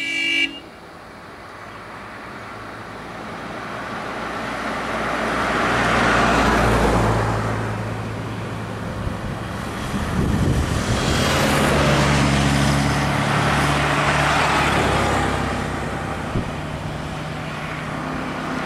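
A vehicle horn toot ends about half a second in. Then motor vehicles drive past on the road, engine and tyre noise swelling and fading twice, loudest around six and twelve seconds in.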